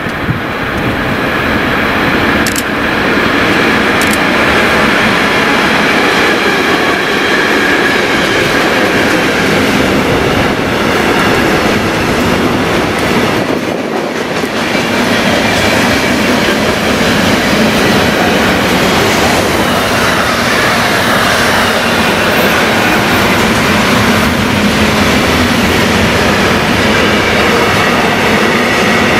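Intermodal freight train passing close by, pulled by a class 193 Siemens Vectron electric locomotive: the wheels of its pocket wagons, many of them empty and some carrying truck trailers, roll and clatter over the rails. A few sharp clicks come in the first few seconds, and the noise dips briefly about halfway through.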